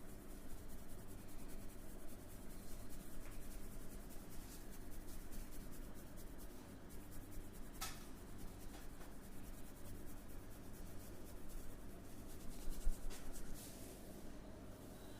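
Hands rubbing and scratching over hair and skin during a head massage, a dry, close scratchy rustle, with a single sharp click about eight seconds in.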